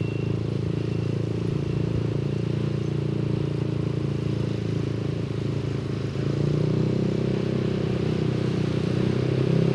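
Yamaha NMAX 155 scooter's single-cylinder engine running steadily while riding, its drone shifting up a little about six seconds in.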